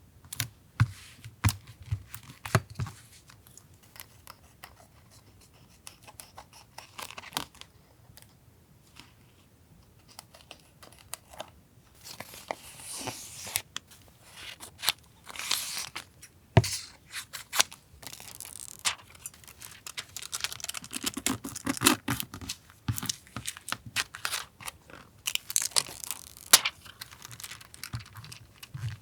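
Paper being handled for a journal collage: sheets rustling and tearing in several stretches, with scattered sharp taps and clicks as pieces are picked up and set down.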